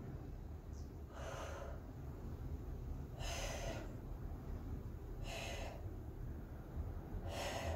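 A woman breathing out hard through her mouth four times, about two seconds apart, keeping time with her side-lying leg lifts, over a steady low room hum.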